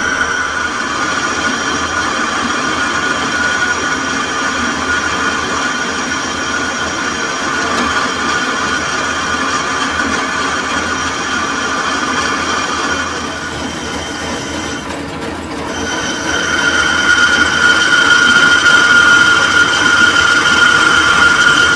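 Metal lathe cutting a sugarcane juicer roller bush, with the tool on the work giving a steady high-pitched ring over the machine's running. The ring drops away for about two seconds past the middle, then comes back louder.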